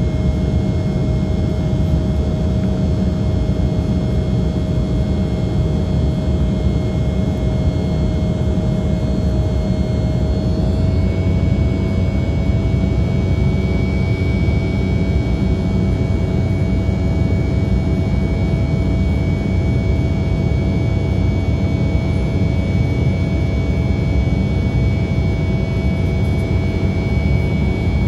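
Cabin noise of an Embraer 195 airliner heard from a window seat by the wing: the steady roar of its GE CF34-10E turbofans during the climb after takeoff, with a thin engine whine on top. The whine steps up slightly in pitch about eleven seconds in, a small change in engine speed.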